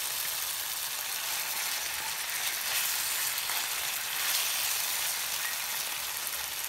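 Raw chicken pieces sizzling steadily in hot olive oil in a non-stick frying pan on high heat, as a wooden spoon stirs them.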